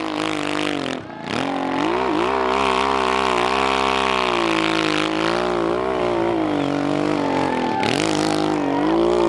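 Hill-climb motorcycle engine revving hard under load as it climbs a steep slope, its pitch rising and falling with the throttle. The revs fall away briefly about a second in and again near the end, then pick back up.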